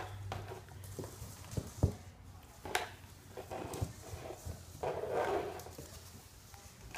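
String mop pushed and scraped across a hardwood floor while a dachshund puppy tugs at its strands: scuffing swishes of the mop head, with a few sharp knocks on the floor, one loud about two seconds in.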